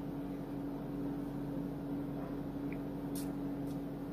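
Steady low mechanical hum, with two faint clicks a little past three seconds in.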